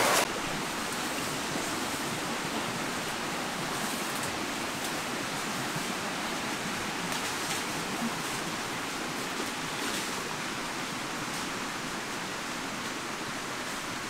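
A steady, even hiss of background noise with no distinct events. A louder sound breaks off right at the start.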